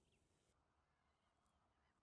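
Near silence, with a few faint, short bird calls.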